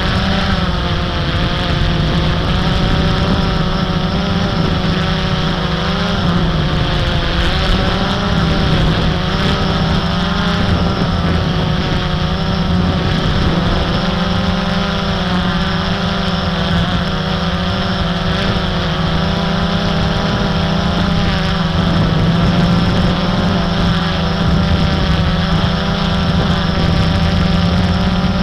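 Blade 350 QX quadcopter's brushless motors and propellers whirring steadily in flight, the pitch wavering up and down as the motors change speed.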